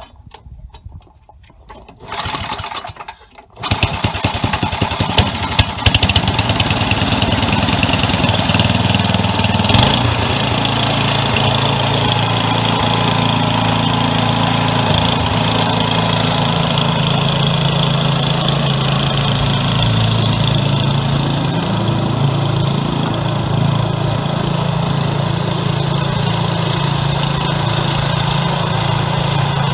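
Craftsman 10/30 snowblower engine being started after a short cranking attempt, catching about three and a half seconds in and then running steadily.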